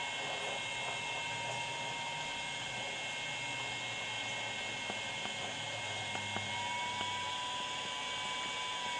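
Puhui T-862++ infrared BGA rework station running while heating a laptop graphics chip: a steady electrical hum with a high whine, with a few faint ticks around the middle.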